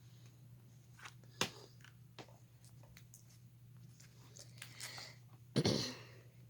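Trading card pack and cards being handled and opened: crinkling, tearing and rustling of the wrapper with scattered small clicks, a sharp tick about a second and a half in, and a louder crinkling burst near the end, over a steady low electrical hum.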